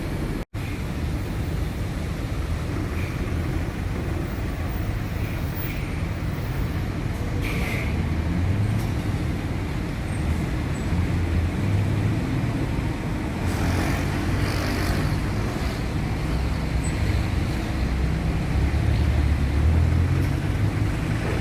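Diesel engines of heavy construction machinery and passing road traffic: a steady low rumble that grows somewhat louder in the second half, with a few short higher noises.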